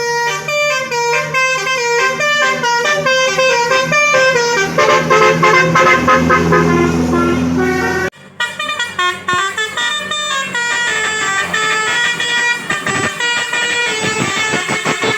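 Bus telolet horn, a multi-trumpet musical air horn, playing quick tunes of stepped notes. It breaks off for a moment about eight seconds in, then starts another tune.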